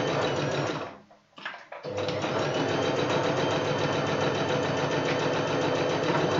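Singer Talent sewing machine stitching at a steady speed, stopping for under a second about a second in, then running on. Near the end the reverse button is held for the closing backstitch while the pedal stays down, so the machine runs straight into reverse without stopping.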